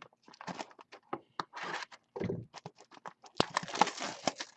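Card packaging being handled close to the microphone: a run of short scratches, scrapes and light taps, thickening into a denser rustle about three and a half seconds in.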